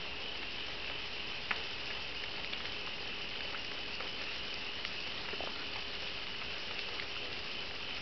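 Burning brush crackling faintly, in sparse scattered pops with one sharper crack about a second and a half in, over a steady high chirring like crickets.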